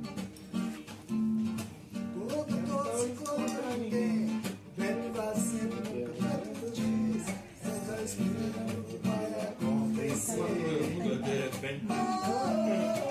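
Music: acoustic guitar playing a repeating strummed pattern, joined by a voice singing from about two seconds in.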